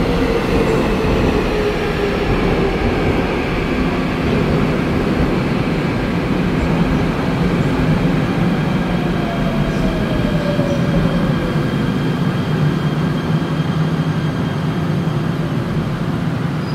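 Seoul subway train on the station track: a loud, steady rumble with an electric motor whine that falls in pitch twice, once near the start and again around the middle.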